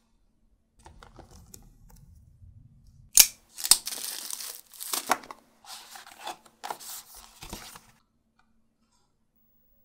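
Packaging being handled and opened: plastic wrap tearing and crinkling and cardboard box parts rubbing and sliding, a string of sharp rips and rustles with the loudest rip about three seconds in.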